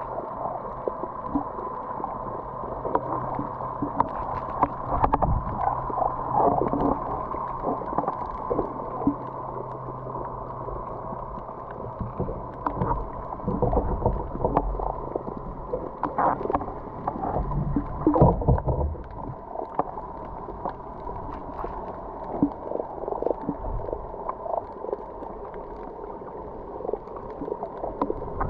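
Underwater sound picked up by a camera below the surface: muffled, with steady low hums and irregular knocks and crackles.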